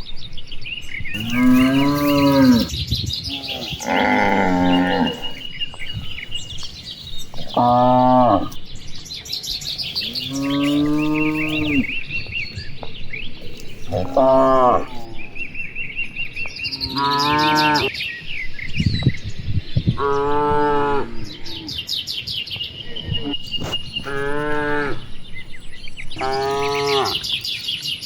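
A herd of cattle mooing: about nine long, drawn-out moos spaced a few seconds apart, over steady chirping of small birds.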